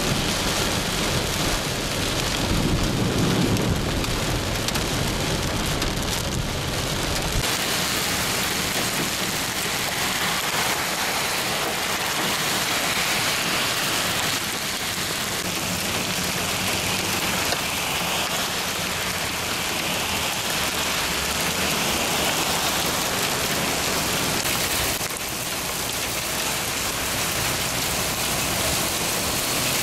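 Heavy rain and hail pouring down, a steady hiss. For the first seven seconds or so it is heard from inside a moving car with a low road rumble beneath; then the rumble drops out, leaving only the hiss of hailstones and rain falling on grass.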